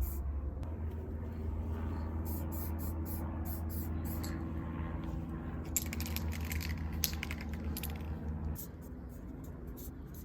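Aerosol spray paint can of Montana paint being used for a base coat: its mixing ball rattles in quick clicks as the can is shaken, and there is a stretch of spray hiss around the middle. A steady low hum runs underneath and drops away near the end.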